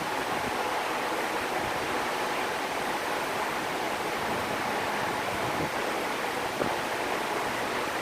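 Steady rushing hiss of workshop background noise, with a faint click about six and a half seconds in.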